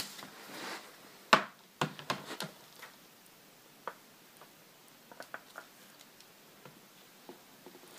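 Hands handling a new MacBook Pro as its lid is opened. There is a sharp knock about a second and a half in, then a few clicks and taps over the next second, then scattered faint ticks.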